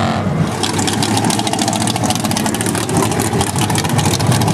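Off-road vehicle engine running steadily through a mud pit, with a rapid crackling over the engine noise.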